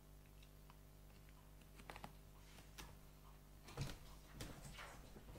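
Near silence: faint room tone with a few soft clicks and taps, the loudest nearly four seconds in.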